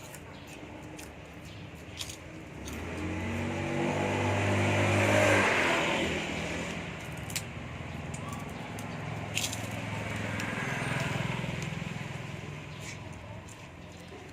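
A motor vehicle engine driving past, growing louder and then fading, loudest about five seconds in. A second, quieter vehicle passes a few seconds later, with a few sharp clicks in between.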